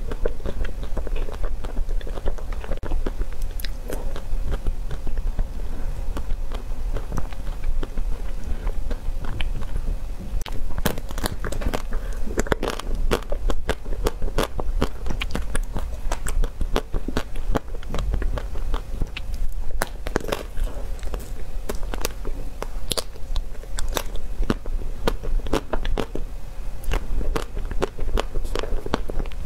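Close-up biting and chewing of a chocolate-coated ice cream bar, its hard chocolate shell cracking and crunching in many sharp, irregular clicks, thickest in the second half.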